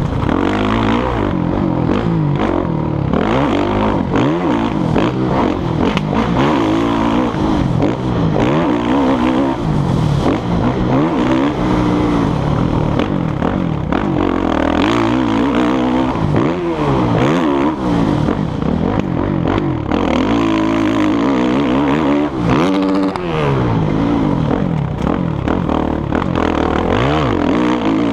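Motocross dirt bike engine revving up and dropping back over and over as the rider accelerates and shifts around the track, heard through a helmet-mounted camera.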